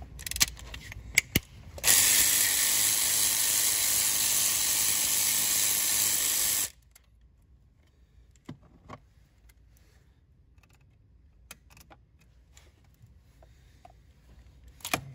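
Power ratchet running steadily for about five seconds as it spins out a high-pressure fuel pump mounting bolt through an extension and Allen socket, starting and stopping abruptly. A few light clicks of tool handling come before and after.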